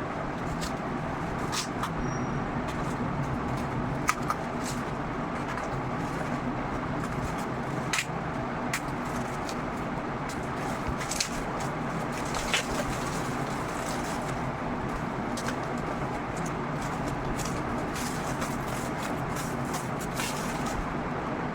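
Packaging being handled and taken off a battery pack: scattered clicks and crackles over a steady background noise.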